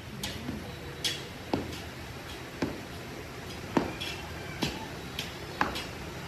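Irregular sharp taps and clicks, about two a second, some with a brief ringing tail, over a steady low workshop hum.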